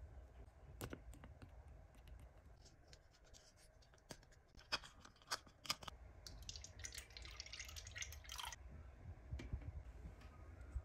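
Small plastic toy parts being handled close up: a few sharp plastic clicks and taps, then about two seconds of crinkling clear plastic wrapper a little past the middle.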